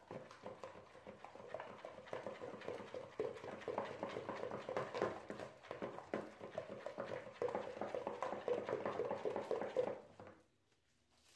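Wooden spoon stirring a thin liquid batter mixture in a bowl: fast, continuous clicking and scraping of the spoon against the bowl, which stops near the end.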